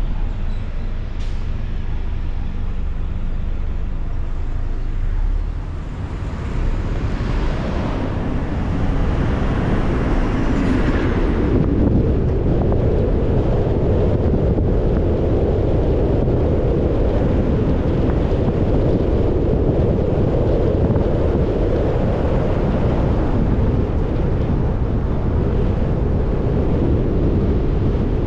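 Steady road noise of a car driving: tyre and engine noise that grows louder about seven seconds in, then holds steady.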